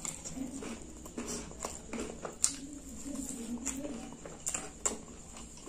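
Close-miked eating of spicy-sauced fried chicken: chewing with wet smacks and clicks of lips and teeth at an irregular pace.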